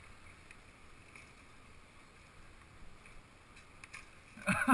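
Faint steady hiss, then near the end a goose starts honking loudly in a quick run of wavering calls.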